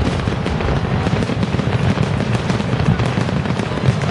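Fireworks display with many shells bursting in quick succession: a dense, continuous run of bangs and crackles without a pause.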